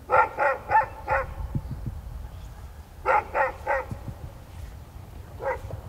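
A dog barking in quick runs: four barks, then three, then a single bark near the end.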